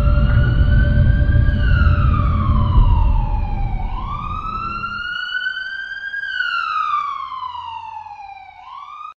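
Emergency-vehicle siren wailing in a slow rise and fall, twice through, over a low rumble that drops away about halfway. It fades near the end and cuts off suddenly.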